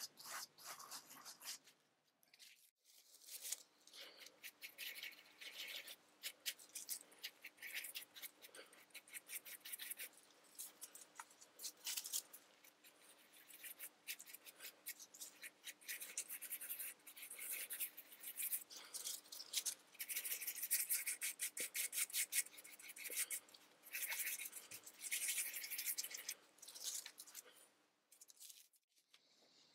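Quick rasping strokes of a gloved hand wiping ink off an inked acrylic (Perspex) drypoint plate, coming in runs. The sound is the wipe-back that clears surface ink so that ink stays only in the scored lines. It stops briefly about three seconds in and again near the end.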